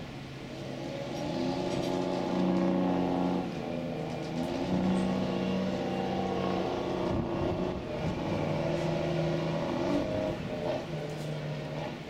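Surf breaking on a rocky shore, under a low, steady engine hum that shifts slightly in pitch every second or two.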